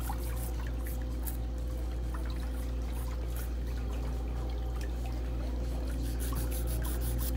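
Pedicure spa chair foot bath running: water moving and trickling in the tub over a steady low motor hum.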